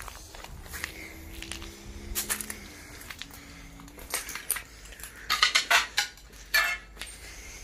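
Footsteps over scattered debris and litter, with sharp clinks and clatters. A loud burst of clattering comes about five to six seconds in.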